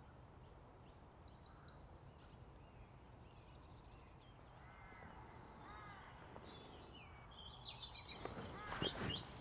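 Faint birdsong: small birds chirping and whistling in short calls over a steady low background rumble. Near the end a few louder clicks and rustles come in close by.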